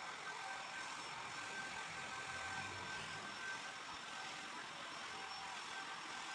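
Steady background hum and hiss with a few faint steady tones, even throughout.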